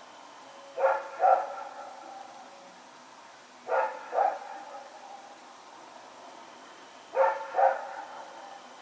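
A Belgian Malinois barking: three double barks about three seconds apart, each bark ringing on briefly afterwards.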